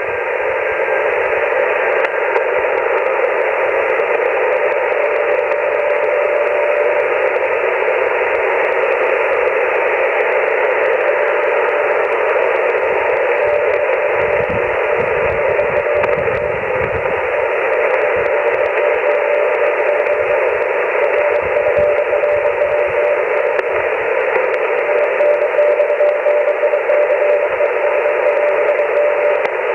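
Icom HF transceiver in CW receive mode on the 30-metre amateur band, giving a steady shortwave receiver hiss. A faint Morse code tone near 600 Hz comes and goes through the noise and is clearer over the last third.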